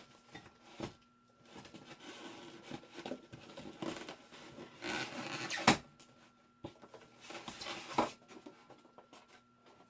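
Handling and unpacking noise as the parts of a new small belt sander come out of their box: rubbing and rustling of the packing, with a few sharp knocks as pieces are set down, the loudest a little over halfway through.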